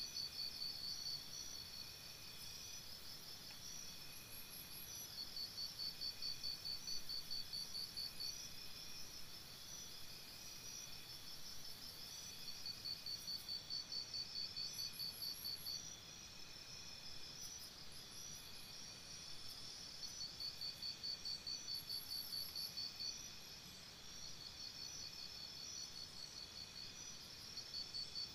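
Insects chirping: overlapping trills of rapid pulses at a few different high pitches, in bouts of a second or two that keep repeating, over a faint steady hiss.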